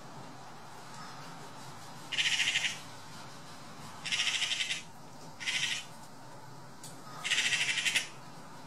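Eurasian magpies giving their rapid rattling chatter in four short bursts, each under a second, the harsh alarm call magpies use when mobbing a hawk on its kill.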